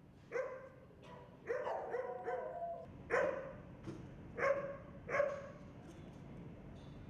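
Shelter dogs in kennel runs barking, about seven short, sharp barks, two of them overlapping at different pitches about two seconds in. The barking stops for the last second and a half.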